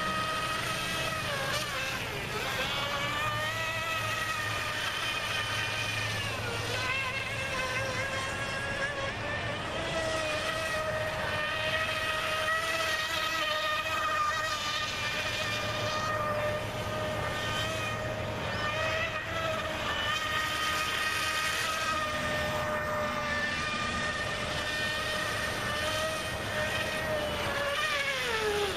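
RC boat's outrunner brushless motor on 4S spinning a Kyosho Dolphin outboard's flex shaft and prop: a steady high whine at full throttle, dipping and recovering in pitch a few times, then falling away as the throttle comes off near the end.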